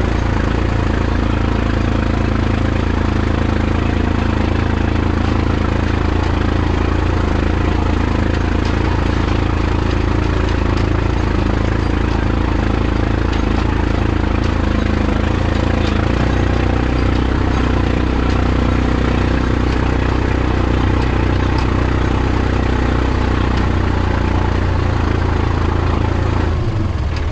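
Hattat 4x4 tractor's diesel engine running steadily, its low note shifting slightly partway through.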